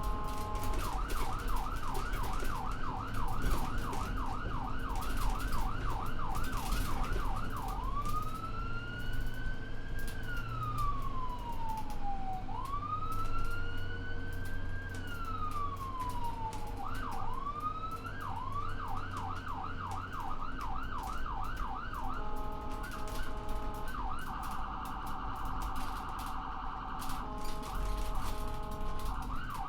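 Electronic ambulance siren cycling through its modes over the low rumble of the moving vehicle: a fast yelp of about three rising sweeps a second, then two long wails that rise and fall slowly, the yelp again, then stepped alternating tones and a very rapid warble near the end.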